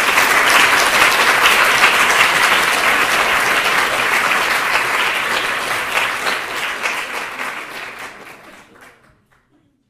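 A large audience applauding: dense, steady clapping that tapers off over the last few seconds and dies away just before the end.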